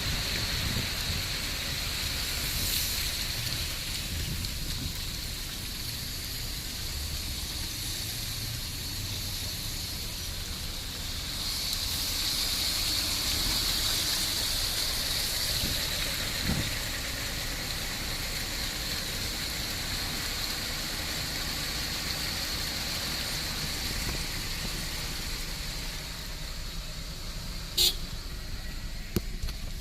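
Heavy rain falling steadily, with road traffic swishing through the wet; the hiss swells about twelve seconds in, and there is a single sharp click near the end.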